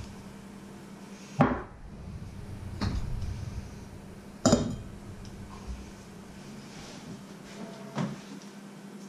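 A metal funnel and a mug knocked and set down on a wooden cutting board: four separate clanks with brief ringing, the loudest about halfway through. A steady low hum runs underneath.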